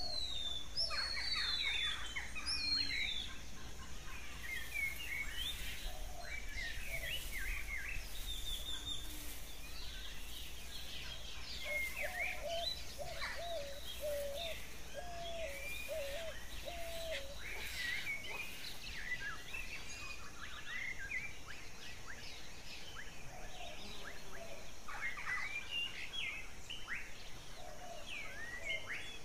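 Recorded birdsong ambience: many birds chirping, with short rising and falling notes overlapping over a steady hiss. From about twelve to seventeen seconds in, a lower-pitched call repeats about eight times.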